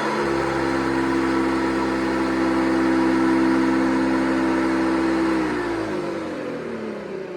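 1982 Hoover Guardsman vacuum cleaner's motor running steadily with a shift in tone just after the start. About five and a half seconds in it is switched off and winds down, its pitch falling as the sound fades.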